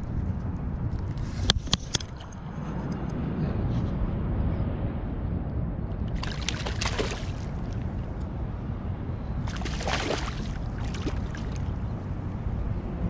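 A striped bass splashing at the water's surface beside a kayak, in two main bursts about six and ten seconds in, over a steady low rumble. Two sharp knocks come about one and a half and two seconds in.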